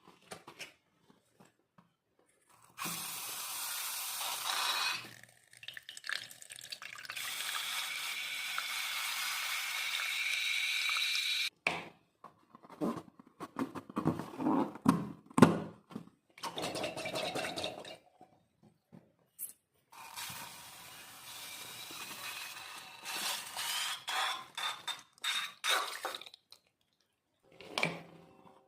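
Air hissing out of a balloon with a thin whistle that rises in pitch, in several long stretches, alternating with bursts of crisp crackling from crunchy beads being squeezed and mixed into play dough.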